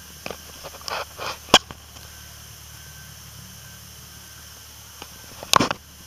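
Handling noise on a hand-held camera: a few sharp clicks and knocks, the loudest about one and a half seconds in, and a short scraping rustle near the end, over a steady background hiss.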